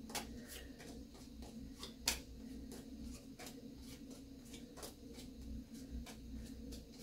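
Board-game cards being dealt face down onto a table one at a time: soft, irregular taps and slides of card on card, roughly two a second, with one sharper tap about two seconds in, over a faint steady hum.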